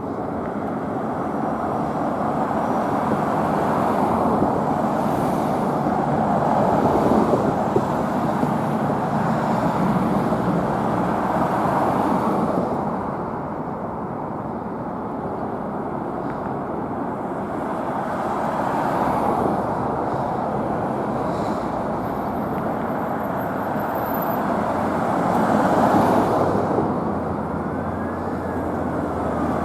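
Road traffic going by, a noisy wash of tyres and engines that swells and fades as vehicles pass. Near the end a fire engine's siren starts to wail, rising and falling in pitch.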